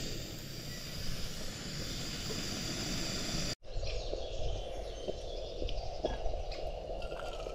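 Eggs and sausage sizzling in a grill pan on a gas camping stove. After a sudden cut about three and a half seconds in, coffee is poured from a moka pot into an enamel mug, with small clicks.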